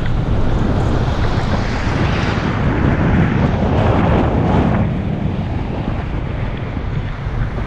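Wind buffeting the microphone of a camera mounted outside a moving car, over a low rumble of road and tyre noise. It swells for a few seconds in the middle, then eases.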